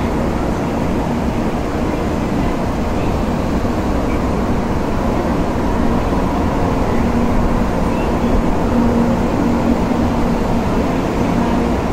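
Steady rumble of Shinkansen trains at a station platform, with a low hum that grows stronger about seven seconds in.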